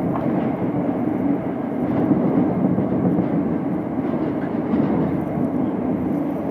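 Tokyo subway train running through a tunnel, heard from inside the front car: a steady, low noise of the train moving along the rails.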